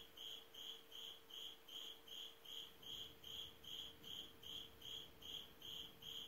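Faint insect chirping, one even high chirp about two and a half times a second, over a faint steady hum.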